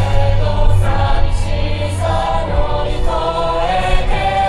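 Yosakoi dance music with choir-like sung vocals holding long notes over a low bass.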